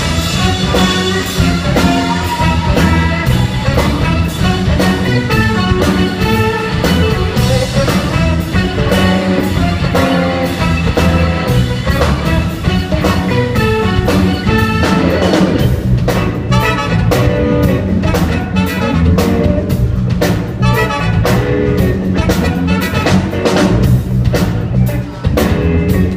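A live band playing an instrumental passage without vocals: a driving drum kit with rimshots under brass and other instruments.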